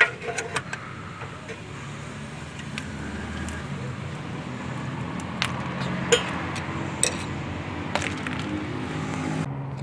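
Flat screwdriver ticking and scraping against the steel oil pan seam as the pan is pried off the block, the old silicone sealant letting go: a handful of short, sharp clicks scattered over a steady low hum.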